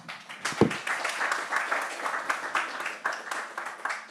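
Audience applauding, a dense patter of clapping that fades away near the end, with one low thump about half a second in.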